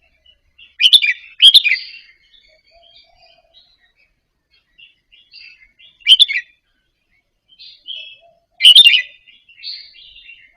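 Red-whiskered bulbul singing: loud short whistled phrases four times, two close together near the start, then one in the middle and one near the end, with soft twittering between them.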